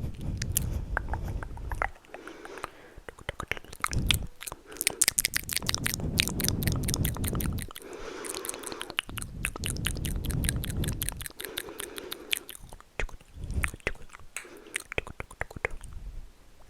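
Close-miked ASMR trigger sounds: rapid, crackly clicking with several bouts of low rubbing or handling noise against the microphone.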